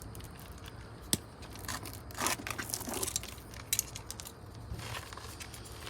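Jumper cables being handled and pulled out from a portable jump starter: rustling and scraping with scattered small clicks, one sharper click about a second in.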